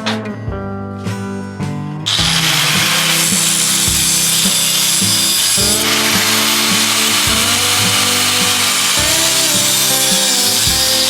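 A power tool starts about two seconds in and runs steadily with a loud hissing whine, over background guitar music.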